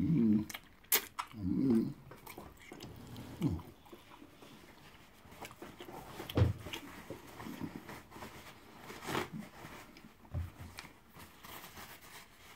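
A man eating fufu and egusi soup by hand: a few short closed-mouth hums of enjoyment in the first few seconds, then quieter chewing with scattered wet clicks and lip smacks.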